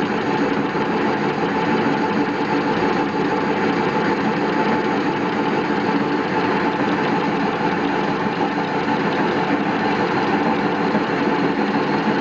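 Metal lathe running steadily while facing the end of a large steel blank under power feed, the tool cutting tough steel with a constant hum and several steady tones.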